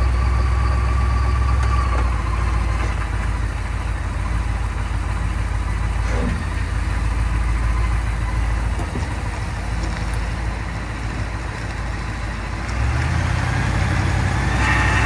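Vehicle with a 10R100 ten-speed automatic transmission running at low speed, with a steady engine and drivetrain sound. About thirteen seconds in a grinding noise joins it, louder in the low rumble and with a higher edge; the owner puts it down to the transmission.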